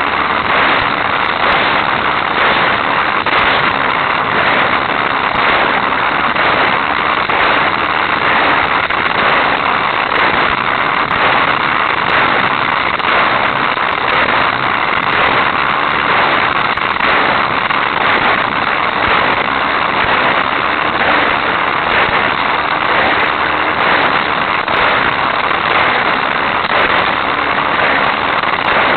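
Hot Wheels Sizzlers electric toy race car running flat out on plastic track: a loud, steady buzzing rattle of its small motor and wheels, with a constant crackle of fine clicks, picked up by a camera riding on the car.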